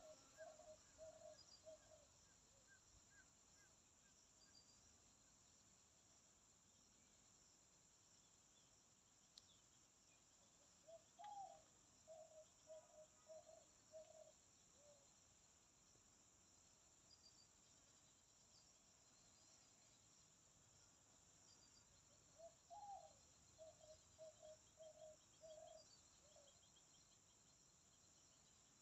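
Faint, steady high-pitched chorus of crickets or similar insects. About every eleven seconds it is joined by a low animal call of about six short notes, the first one rising, heard three times.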